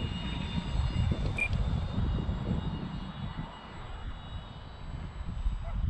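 Wind buffeting the microphone in gusts, over the faint steady whine of an electric RC model autogyro's motor and propeller flying overhead.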